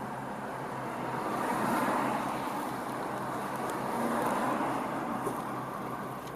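Steady road traffic noise from passing cars, an even rush with a low hum underneath and a few faint ticks.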